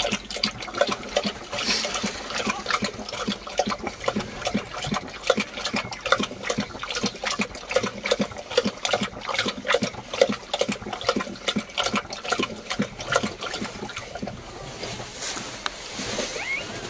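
Kangal dog lapping liquid from a bowl: quick wet laps, several a second, running on without a break.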